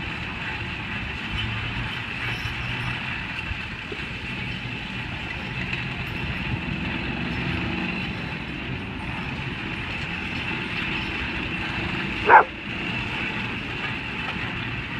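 A single short, sharp dog bark about twelve seconds in, the loudest sound, over a steady background of machinery hum and outdoor noise.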